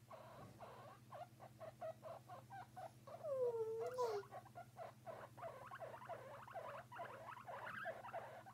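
Guinea pigs vocalizing softly: a run of short, repeated squeaks, several a second, with one longer wavering call about three seconds in.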